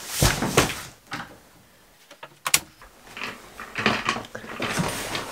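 Large cardboard shipping boxes set down onto a couch, with a loud thump and cardboard scraping in the first half-second. A sharp click follows about two and a half seconds in, then irregular rustling and shuffling of someone moving about.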